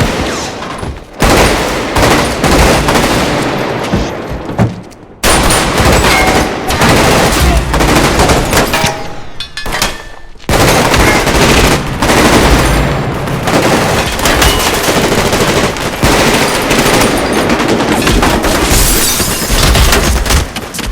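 Dense, sustained gunfire of rapid shots and automatic bursts, breaking off briefly twice, about five and ten seconds in.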